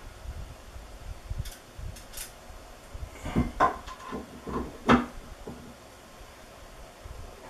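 Stepper motor and metal X-carriage plate of an X-Carve CNC router being handled and fitted together on a tabletop: a few light clicks, then a run of knocks and clunks of metal against metal and against the table about three to five seconds in, the loudest near the five-second mark.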